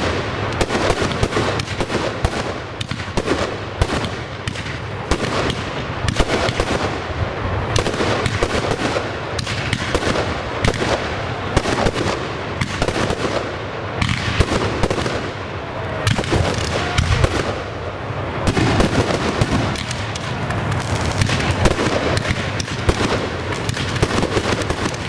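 Professional fireworks display going off without a break: a dense run of bangs, pops and crackling from many shells and cakes firing in quick succession.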